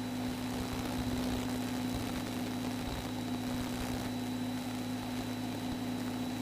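Cessna 172R's four-cylinder Lycoming IO-360 engine and propeller droning steadily in flight, heard from inside the cabin, with an even hiss over a constant low hum.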